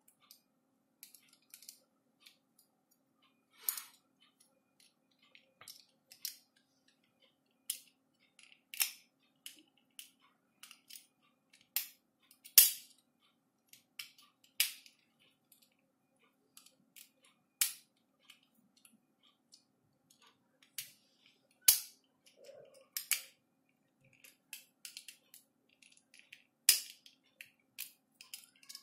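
Irregular sharp clicks and taps of a screwdriver on the plastic housing and lever parts of a 20 A SPN switch being fitted back together, with a few louder clicks among them.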